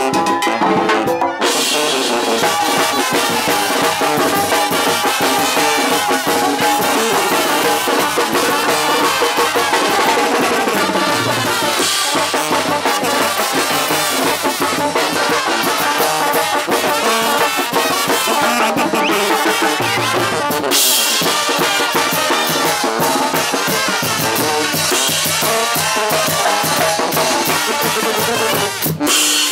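Mexican brass band (banda) playing live: brass over a snare drum, bass drum and clashing cymbals, a steady loud dance beat.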